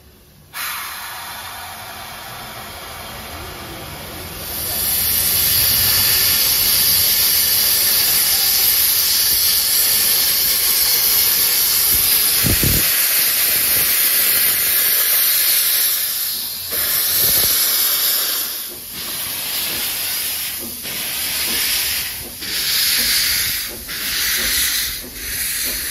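Steam locomotive hissing steam, loud and steady from about four seconds in, then breaking into slow, spaced chuffs about every second and a half as it starts to pull away. A single low thud comes about halfway through.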